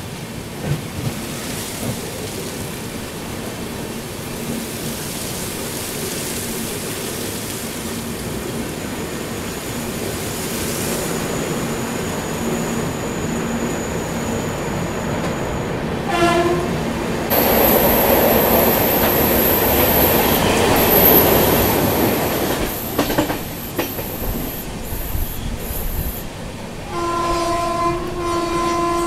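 Passenger train running, heard from inside a coach as a steady rumble. About 16 s in there is a short horn blast. From about 17 to 26 s the running gets louder, with a thin, very high wheel squeal over it. A longer horn sounds near the end.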